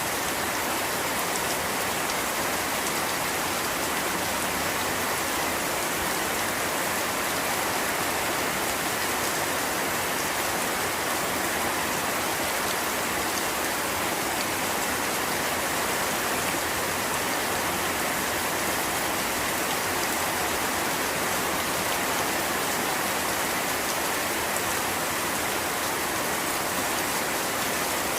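Steady rainfall with dense raindrops pattering on a surface, an even hiss with no thunder or other events.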